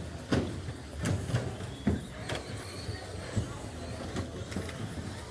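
Electric short-course RC trucks racing on a carpet track: a string of sharp knocks and clatters, about seven in five seconds, as the plastic-bodied trucks bounce, land and hit things, over a steady hall hum.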